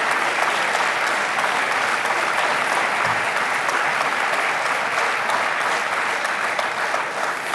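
Large audience applauding steadily, a dense patter of many hands clapping, easing slightly near the end.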